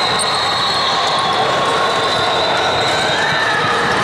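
Basketball bouncing on a court amid steady crowd and game noise.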